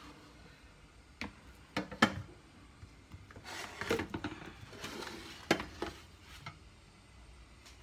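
Cookware being handled on a kitchen counter: a few sharp knocks and clacks from a metal baking tray and a pan being moved, with a brief noisy scrape about three and a half seconds in.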